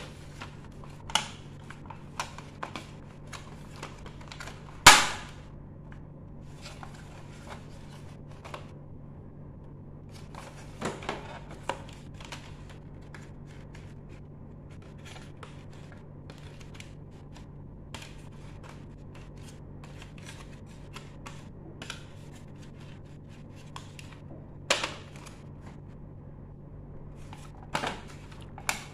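Hard plastic toy dollhouse parts being handled, a scatter of sharp clicks and knocks as the pieces are turned over, tapped and set down. The loudest knock comes about five seconds in, with smaller clusters later on, all over a low steady hum.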